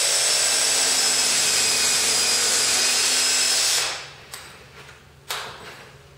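Cordless drill running at a steady speed, boring a screw hole through the MDF base of a miter sled, then stopping suddenly about four seconds in. A couple of short knocks follow.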